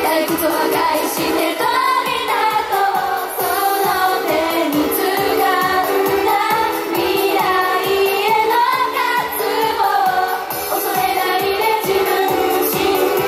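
J-pop song sung live by a female idol group over a backing track with a steady beat.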